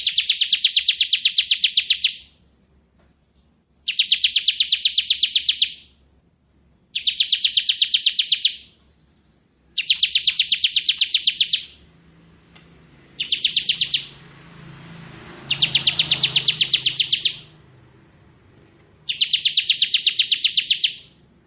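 Bar-winged prinia (ciblek) singing its rapid drilling 'ngebren' trill: seven high bursts of fast, even pulses, each about two seconds long (the fifth shorter), with short pauses between them.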